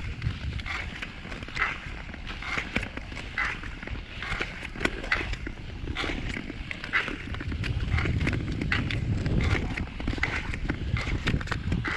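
Tour skates' blades scraping and gliding across clear lake ice in a steady stride, about one stroke a second, with sharp clicks from the ice. A low rumble runs underneath and grows stronger in the second half.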